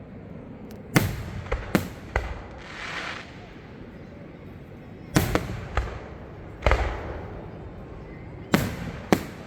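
Aerial fireworks bursting: a run of about nine sharp bangs at uneven intervals, with a spell of crackling about three seconds in.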